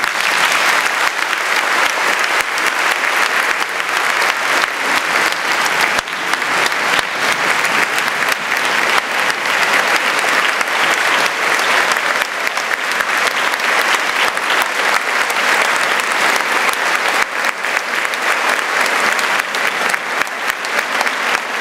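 Large audience applauding, loud and dense, breaking out suddenly and going on without letup.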